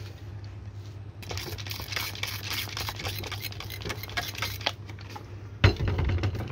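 Hand-pumped plastic spray bottle squirting water in quick repeated strokes into the stem of an upside-down ceramic Büchner funnel, flushing the filter paper out into the beaker. A short low thump of handling near the end.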